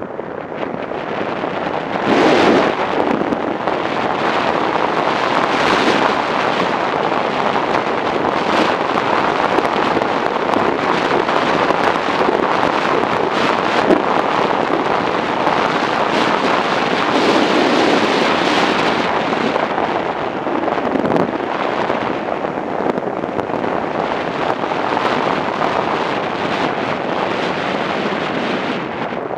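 Wind rushing over the microphone of a motorcycle riding along a road at speed: a loud, steady rush that swells now and then, burying any engine sound.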